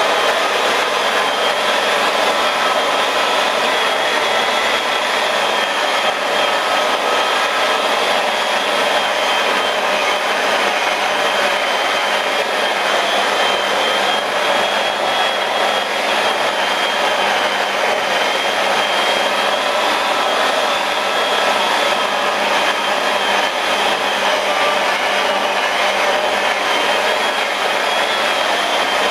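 Electric rotary polisher with a sponge buff pad running steadily against a car's painted panel, a constant motor whine. Its pitch just starts to drop at the very end.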